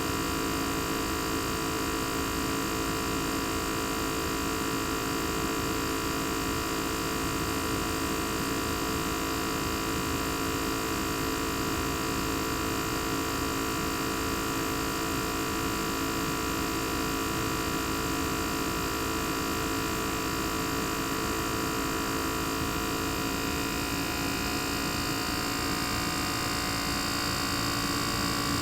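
Panasonic CU-227CF outdoor unit's single-rotary compressor running, heard raw through the open top of its sound-absorbing wrap: a steady hum with several whining tones layered over it. The tones shift a little near the end.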